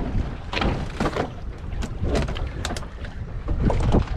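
Steady low rumble of wind and sea around an open fishing boat, with a handful of short sharp knocks or splashes.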